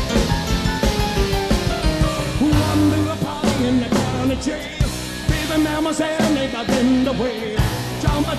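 Rock and roll band music: a rock medley with a drum kit keeping a steady beat under the band.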